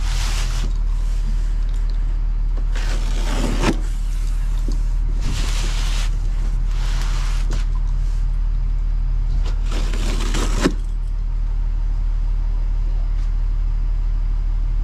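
Vehicle engine idling with a steady low hum throughout. Over it come several short scraping passes and two knocks, about a third of the way in and about two thirds in, as a boxed water heater is shifted and turned on a steel diamond-plate truck liftgate.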